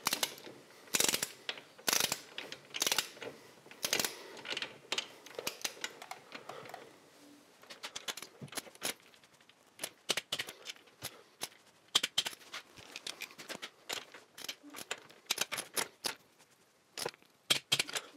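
Ratchet torque wrench clicking as the cylinder-head nuts of a Triumph Tiger T100 engine are tightened in stages. The clicks come in short runs, single and about a second apart in the first few seconds, then quicker clusters later.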